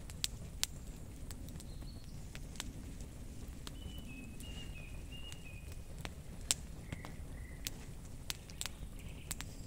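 Wood campfire crackling, with sharp irregular pops over a steady low rumble. A bird chirps a few short high notes around the middle.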